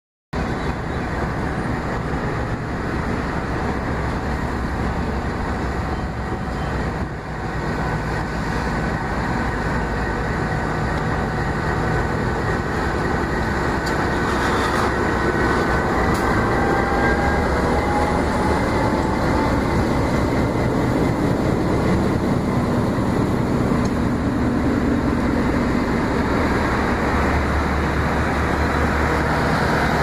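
Diesel-hauled passenger train passing close by: the locomotive's engine running, then the steady rumble and clatter of the coaches rolling past. A thin high squeal comes and goes about halfway through.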